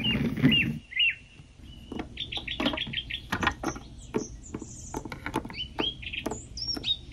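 Small birds chirping and tweeting, with a quick run of repeated chirps about two seconds in and rising whistled calls near the end. Scattered sharp clicks run through it, and a brief low rumble comes at the start.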